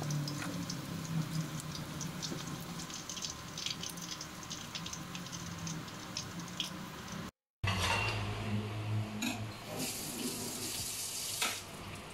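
Hot cooking oil in a wok sizzling with fine, irregular crackles. After a cut about seven seconds in, a low hum and a louder, steadier hiss follow near the end.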